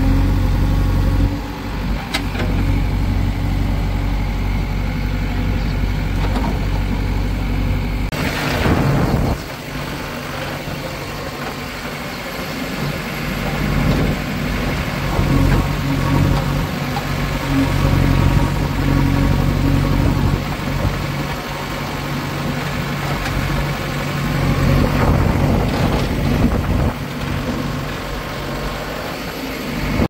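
Diesel engines of a backhoe loader and tractors running steadily, with a short loud rush of noise about eight seconds in, after which the engine note shifts.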